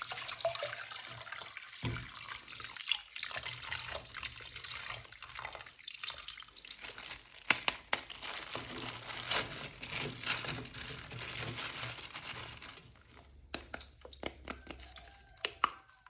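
Tap water running over a plastic action figure as it is rinsed and rubbed clean, with small plastic clicks from handling. The water stops about 13 seconds in, leaving a few handling clicks.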